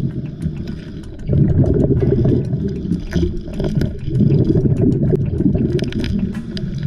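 Underwater sound from a scuba diver's camera: a muffled low rumble and gurgle from the diver's regulator bubbles, which swells and fades, over scattered sharp clicks and clatter as fishing lures and rocks are handled on the riverbed.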